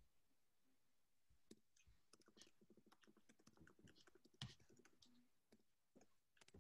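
Faint typing on a computer keyboard: scattered, irregular key clicks starting about a second and a half in, with one louder click about halfway through.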